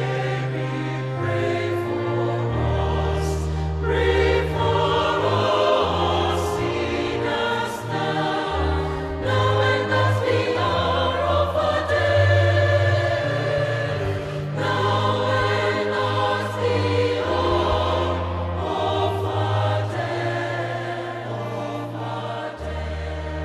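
Choir singing a slow sacred choral piece over long, held low notes that change every few seconds.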